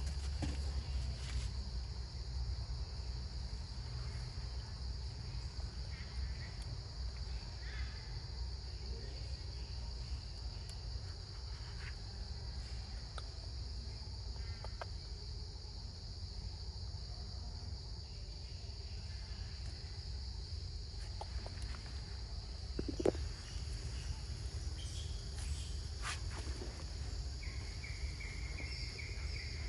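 Insects droning steadily at a high pitch over a low rumble, with a few faint clicks and one brief louder knock about three-quarters of the way through. A second, pulsing call joins near the end.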